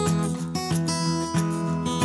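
Background music: acoustic guitar strumming with a steady rhythm.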